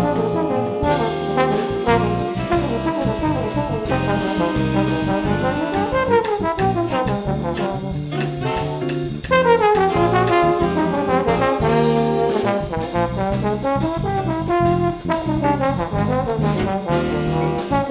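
Brass ensemble, with trumpets and trombones, playing an instrumental choro arrangement in a big-band style, moving in quick rising and falling melodic runs.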